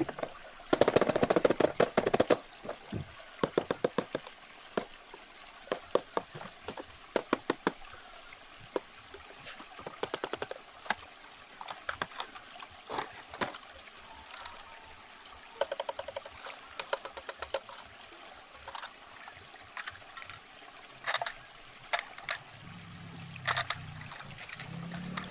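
Toy truck being unboxed: packaging handled and opened, with irregular clicks, taps and crinkles, over a steady background of running, trickling water.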